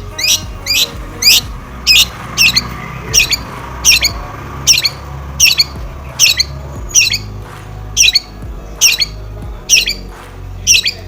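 Long-tailed shrike (cendet) giving a steady series of short, harsh, downward-sweeping calls, roughly every two-thirds of a second, over faint background music.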